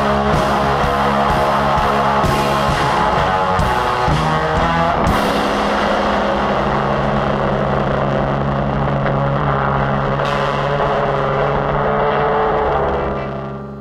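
Loud instrumental rock music: dense electric guitars over held low bass notes, with two sharp crashes about five and ten seconds in. It fades out at the very end as the track finishes.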